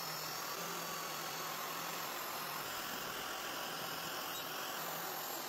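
Biscuit joiner running, heard as a steady, even hiss with a faint whine.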